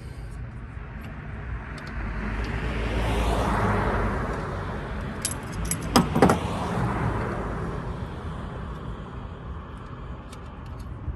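A vehicle passing by, swelling to its loudest a few seconds in and fading away. About halfway through, a few sharp metallic clicks of pliers working at a crimped gas-hose clamp.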